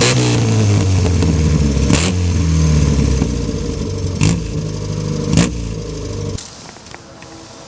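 Car engine running, its pitch sliding at first and then steady, with three sharp cracks along the way; it stops suddenly about six seconds in.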